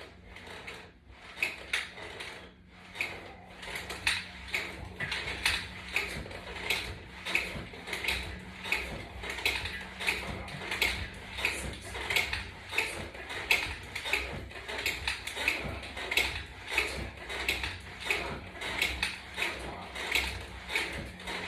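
Rhythmic clicking and creaking of resistance-band exercise gear, about two clicks a second, as a flat resistance band hooked to a latch bar is pulled and released over and over through a set of crunches.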